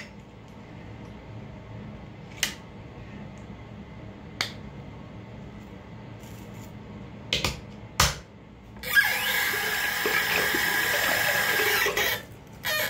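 A few sharp clicks and knocks from a toothpaste tube and toothbrush being handled at the bathroom sink. Then a bathroom tap runs for about three seconds near the end, wetting the toothbrush.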